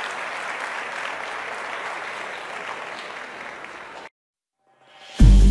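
Audience applauding steadily, cutting off abruptly about four seconds in. After a moment of silence, a loud deep boom starts electronic music near the end.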